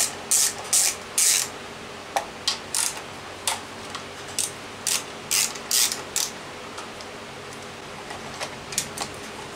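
Hand ratchet wrench clicking in short bursts of back-and-forth strokes as a bolt is worked, about a dozen strokes in the first six seconds, then a few lighter clicks near the end.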